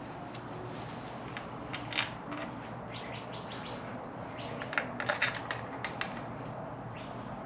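Small metal parts and hand tools clinking and tapping during engine assembly: scattered sharp clicks, one about two seconds in and a quick cluster a little before the middle of the second half.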